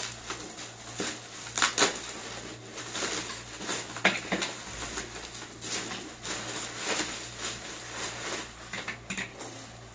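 Plastic bubble wrap and packaging rustling and crinkling as office chair parts are unwrapped by hand, with irregular sharp clicks and light knocks from the parts being handled.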